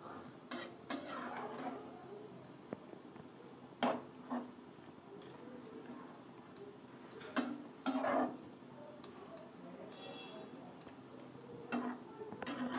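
Spatula scraping and tapping against a nonstick pan as spinach wilting in a little water is stirred: a handful of scattered strokes over a faint steady hiss.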